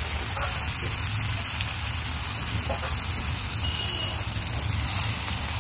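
Ground masala paste sizzling in hot oil in an aluminium kadhai over a wood fire: a steady frying hiss. It swells slightly near the end as a bowl of liquid is poured into the pan.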